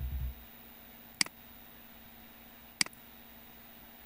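Two computer mouse clicks about a second and a half apart, each a sharp press followed by a lighter release, over a faint steady hum. A short low thump comes right at the start.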